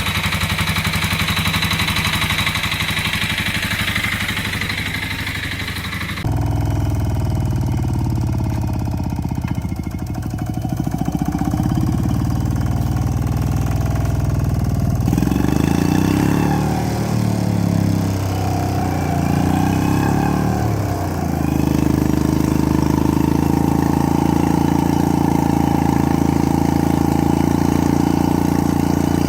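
Walk-behind tractor engines running in several clips cut together, the sound changing abruptly twice. In the middle clip the engine speed rises and falls.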